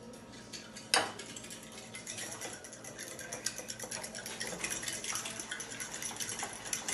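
A fork beating batter in a bowl: fast, continuous clicking and scraping of the fork against the bowl, after a single sharper knock about a second in.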